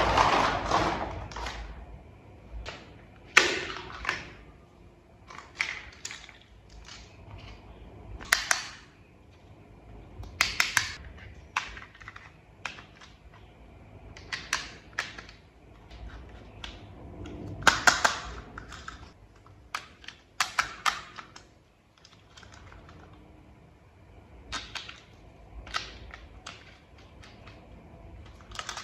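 Small plastic toy vehicle parts being handled and snapped together: irregular sharp clicks and snaps, some in quick little clusters.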